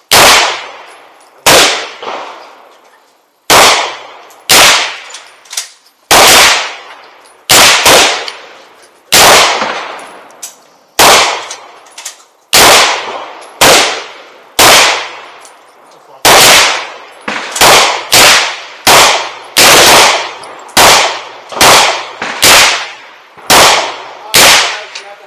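Rapid single gunshots, about two dozen in a row at roughly one a second with uneven spacing, each sharp crack trailing off in a short echo.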